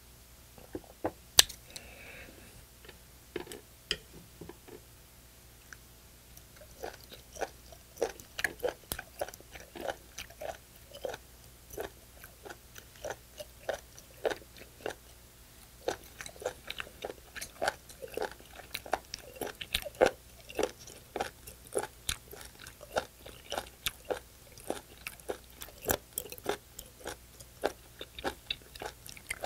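Close-miked chewing of raw spoon worm, heard as quick, sharp clicks that grow dense and steady from about seven seconds in. A single sharp knock comes about a second in.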